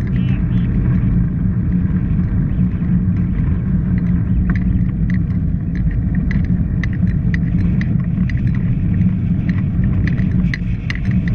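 Steady low rumble of wind buffeting a bicycle-mounted camera's microphone while riding on a wet road, with scattered light clicks from about four seconds in.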